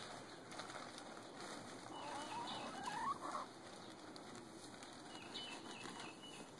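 Backyard hens clucking, with a louder wavering call about two to three seconds in.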